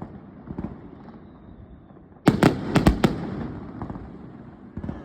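Fireworks shells bursting: a few faint pops, then a quick cluster of four or five sharp bangs a little over two seconds in, with a rumble that fades away after them, and one more pop near the end.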